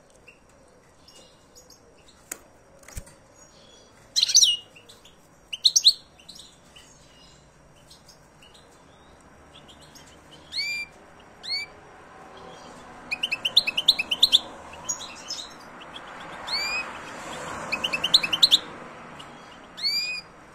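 Male European goldfinch singing in a cage: scattered bursts of high, quick twittering chirps at first, then rapid runs of chirps packed close together in the second half. A soft hiss rises under the later song, and two faint clicks come early on.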